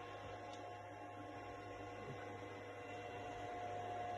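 Steady electrical hum with several faint, unchanging whining tones from an Ender 3D printer switched on, its fans and electronics running.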